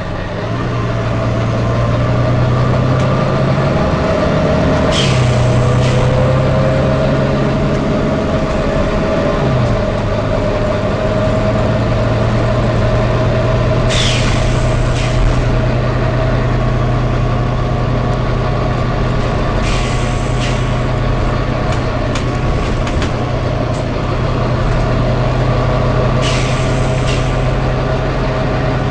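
Volvo B9TL bus with its 9-litre six-cylinder diesel running steadily, and a short 'tsh tsh' hiss of air from its air system four times, each a quick pair of hisses.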